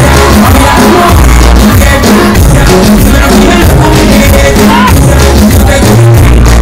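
Loud upbeat praise music with a steady beat and strong bass.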